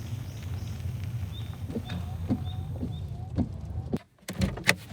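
Car driving slowly with a steady low rumble from the engine and road, heard from inside, with a few faint short chirps over it. About four seconds in the rumble cuts off suddenly, followed by a few sharp clicks and knocks.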